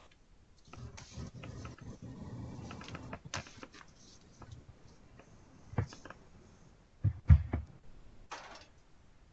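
Scattered small clicks and knocks, with a louder dull thump about seven seconds in.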